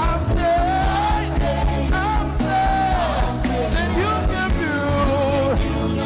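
Live gospel worship band playing a steady groove with drums and bass, while a lead line sings or plays a wordless, gliding melody over it.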